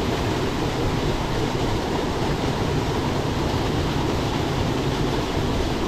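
Waterfall rushing steadily, a constant wash of falling water with no breaks.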